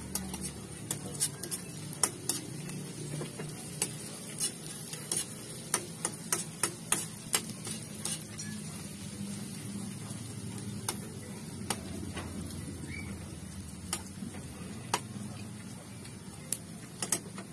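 Metal slotted spoon stirring sautéing onion and ginger in a metal frying pan: sharp scrapes and taps of metal on metal, many in the first half and fewer later, over a steady low sizzle as the aromatics brown.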